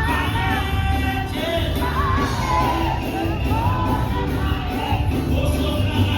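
Music with singing voices carrying a wavering melody over a steady low beat.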